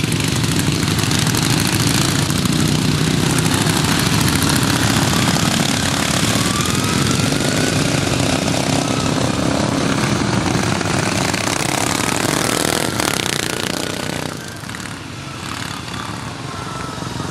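A pack of racing lawn mowers with twin-cylinder flathead engines running hard, a dense, rough engine noise with engine pitches rising as they rev. The noise dips briefly about fourteen seconds in, then builds again.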